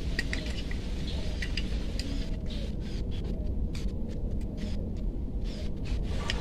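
Steady low background rumble with faint scattered clicks and taps as the scooter's metal throttle body is worked loose by hand and lifted off the engine.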